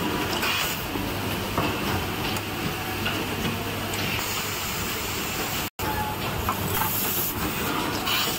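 Automatic micro-USB cable soldering machine running: a steady mechanical hiss over a low hum, with a few faint clicks from the moving wire jigs and slides. The sound drops out completely for an instant a little over halfway.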